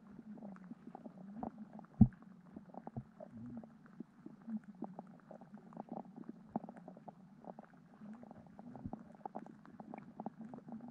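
Muffled underwater sound of a stream heard through a submerged camera: a low wavering hum with many small irregular clicks and ticks, and one sharp knock about two seconds in.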